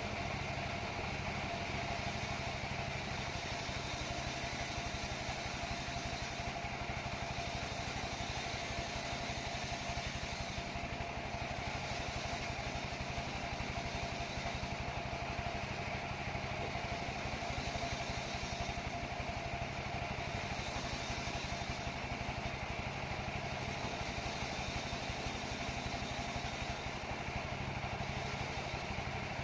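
Sawmill saw machine running steadily: an even motor drone with a constant whine on top, holding the same level throughout.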